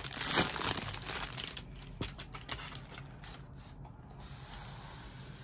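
Clear plastic sleeve rubbing and sliding off a cardboard box, loudest in the first second, then softer rustling with a few light clicks.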